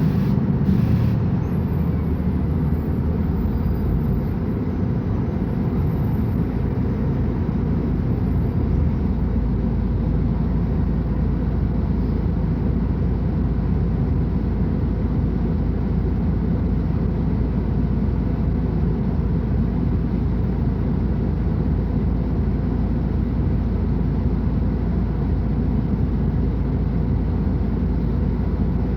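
Diesel engine of a Mercedes-Benz O500UA articulated bus running with a steady low drone.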